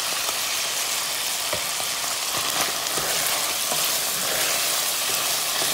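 Ground beef sizzling steadily in hot fat in a frying pan, with a spatula scraping and stirring through the meat to break it up.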